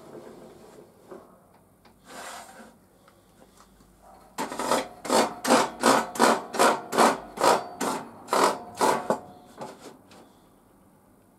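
Rip fence of a table saw being moved along its rails in about a dozen rasping strokes, two to three a second. The strokes start a few seconds in and stop about two seconds before the end. The saw's motor is not running.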